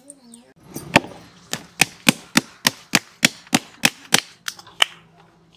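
Hands slapping and pressing gulab jamun dough in a steel bowl: a regular run of sharp slaps, about three a second, starting about a second in and stopping near the end.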